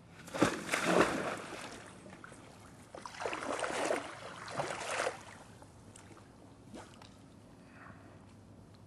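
Rustling and crunching of tall plants as someone pushes through them, in two bursts: a short one about half a second in and a longer one from about three to five seconds, then a faint single snap near the end.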